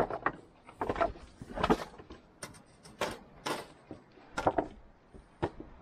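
Irregular knocks and clinks of a metal flagpole and loose slate stones being handled, about a dozen sharp hits with no steady rhythm.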